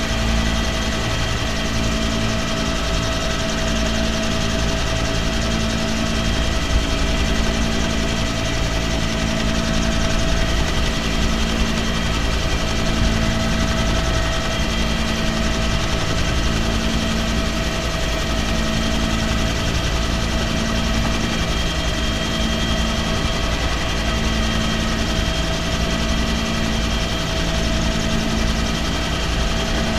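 Military helicopter's turbine and rotor running steadily as it climbs, heard from inside the cabin with the side door open.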